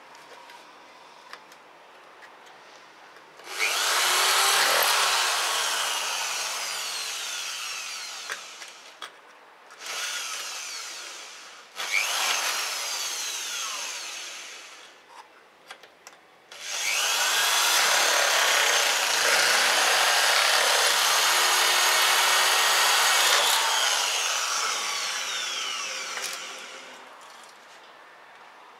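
Hand-held power drill boring into an aluminium frame profile in four runs, the last and longest about ten seconds, with a whine that keeps falling in pitch during each run.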